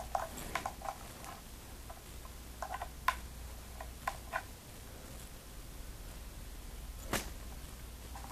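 Light clicks and taps of a USB cable and plastic capture card being handled, in small clusters, with one sharper click about seven seconds in.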